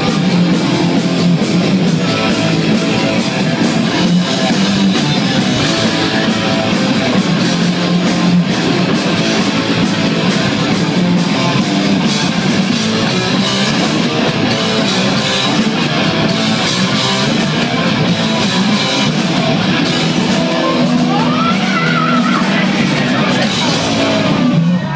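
Heavy metal band playing live: distorted electric guitars, bass and pounding drums, loud and dense, with sliding pitches in the higher notes near the end.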